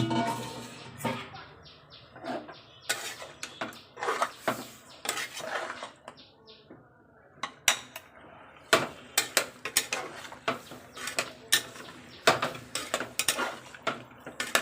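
Metal utensils clinking and knocking against a pressure cooker pot as chicken is worked in it, with a dense run of sharp knocks in the second half.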